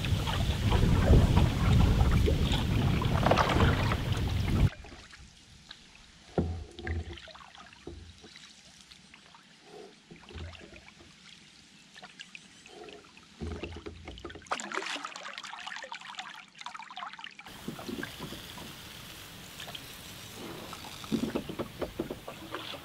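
Wind buffeting the microphone for the first few seconds, then, after a cut, quiet canoe paddling: a wooden paddle dipping and pulling through calm water, with occasional soft knocks and water trickling and dripping off the blade.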